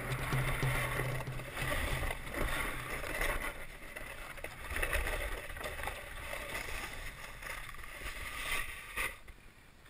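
Snowboard sliding and scraping over packed, icy snow in uneven surges, dying away about nine seconds in as the board comes to a stop.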